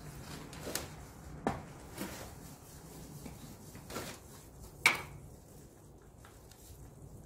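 Scattered knocks and clicks of things being handled while engine oil is being refilled. The loudest is a sharp metallic clink with a brief ring about five seconds in.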